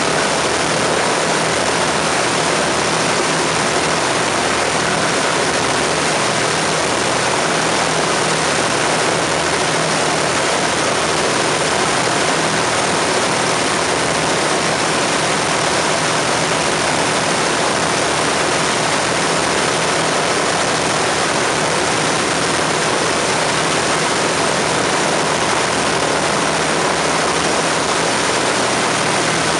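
The four Rolls-Royce Merlin V12 engines of an Avro Lancaster bomber running steadily on the ground, propellers turning, with no change in pitch or level.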